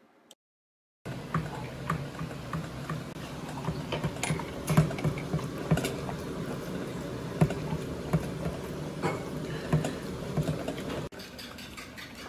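A Labrador eating a soft rice-and-egg meal from a stainless steel bowl: quick, irregular wet smacks and clicks of its mouth working the food and knocking the bowl, starting about a second in and dropping a little in level near the end.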